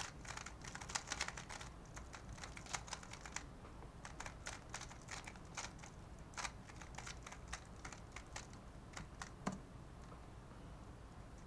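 Faint, quick plastic clicking of a QiYi Valk 3 Elite M magnetic 3x3 speed cube being turned by hand, each layer turn a short clack. The clicks thin out after about nine seconds, with one slightly heavier click about nine and a half seconds in.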